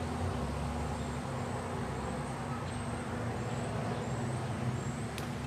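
Steady outdoor background noise with a low hum, like distant traffic, and a single light click shortly before the end.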